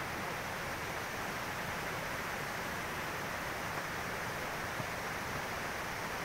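Steady rushing noise with no rhythm, with a couple of faint ticks near the middle.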